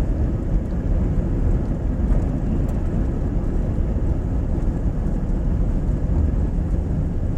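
A car driving along a road: a steady low rumble of tyres and engine.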